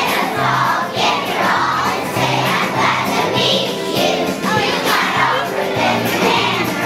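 A group of kindergarten children singing together to a backing music track.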